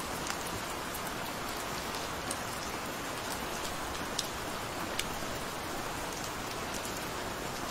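Gentle rain falling steadily: an even hiss with a few sharper drop ticks scattered through it, the most distinct about four and five seconds in.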